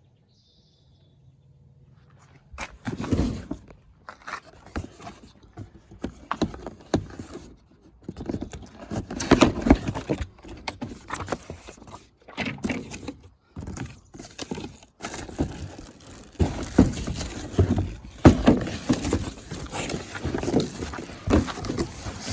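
A cardboard box being opened and handled by hand: irregular rustling, scraping and knocking of cardboard that starts about two seconds in and keeps going.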